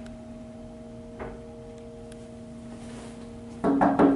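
A steady electrical hum made of a few fixed tones, with a faint knock about a second in, then a sudden loud noise near the end.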